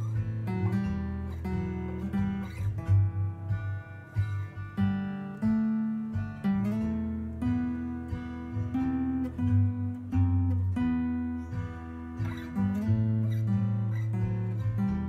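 Acoustic guitar played solo, with plucked melody notes over a steady low bass line.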